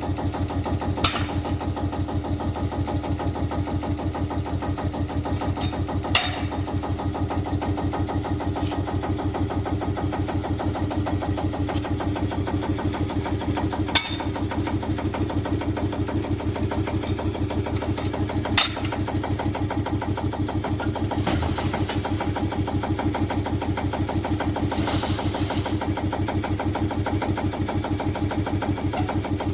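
Jung narrow-gauge diesel field-railway locomotive idling with an even beat. Over it come about five sharp metal clanks from the steel tipping wagons being unlatched and tipped, and later a softer rush of sand sliding out of them.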